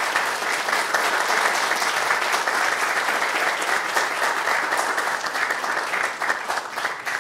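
Lecture-hall audience applauding: sustained clapping from many people, tailing off near the end.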